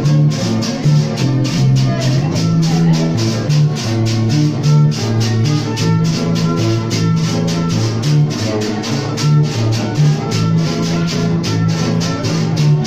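Live music from a small group: guitars over a low, stepping bass line, with a shaker keeping a quick, even beat of about five strokes a second.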